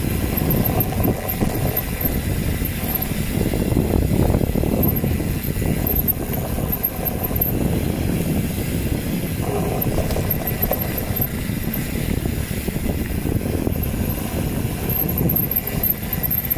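Wind buffeting the microphone over the rolling rumble and rattle of a mountain bike descending a trail.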